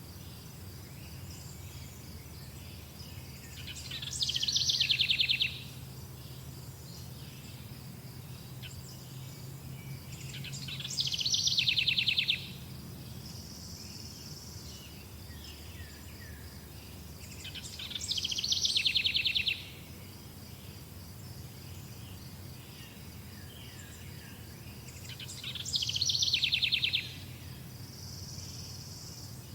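A songbird repeating the same fast, trilled song phrase four times, about every seven seconds; each phrase swells and then stops abruptly. Between phrases there is a steady high chirring of insects or crickets over a faint low hum.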